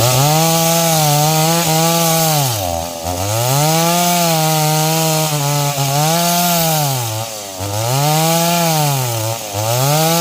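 Stihl MS 381 two-stroke chainsaw running at high revs while cutting wood. Its pitch drops briefly and climbs back about four times.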